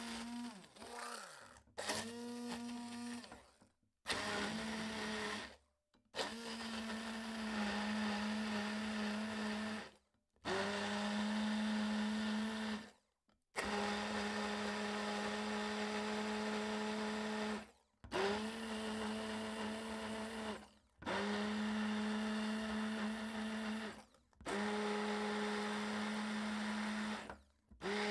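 Electric immersion (stick) blender pureeing sliced banana in a glass beaker. It runs in repeated bursts of a few seconds, each spinning up with a short rise in pitch to a steady hum and then stopping abruptly.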